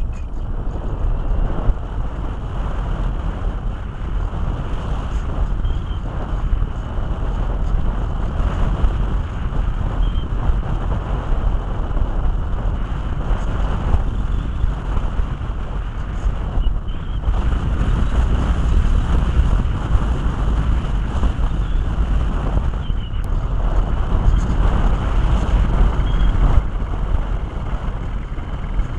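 Airflow rushing and buffeting over the microphone of a camera carried on a flying RC model plane: a steady, dense rumble of wind noise.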